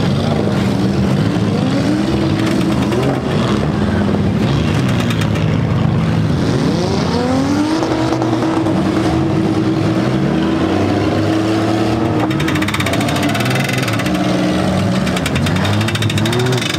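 Several demolition derby cars' engines revving hard at once, pitch climbing and dropping again and again as the drivers push against each other.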